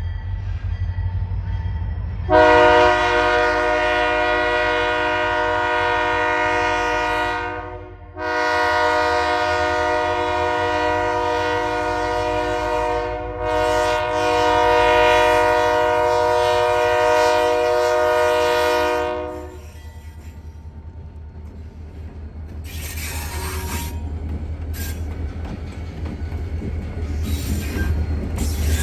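Lake State Railway EMD GP40-2 diesel locomotive blowing its multi-note air horn in three long blasts, with short breaks between them, as it sounds for a grade crossing, over the low rumble of the diesel engines. The horn stops about two-thirds of the way through, and the locomotives then pass close by with engine rumble and a few sharp wheel clicks on the rails.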